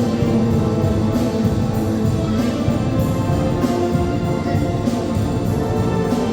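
A wind band of brass and woodwinds plays a held-note passage, with a percussion stroke, drum and cymbal, falling about every second and a quarter.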